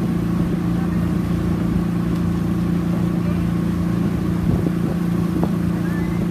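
Outboard motor of a coaching launch running steadily at low speed alongside a rowing shell, an even low hum that holds one pitch throughout.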